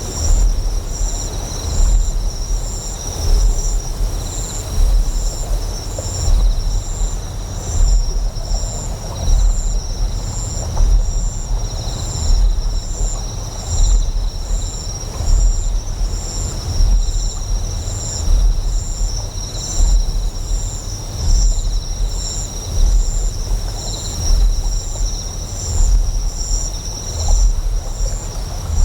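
Deep, resonant generator hum pulsing in slow regular swells, layered with insects chirping in a steady high-pitched trill and pulse, over a faint wash of flowing water.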